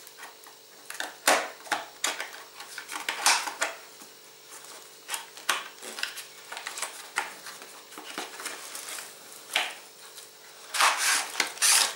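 Hands opening and handling a folding knife's cardboard box: scattered light clicks and taps, with a longer, louder rustling scrape near the end as the box flap is worked open.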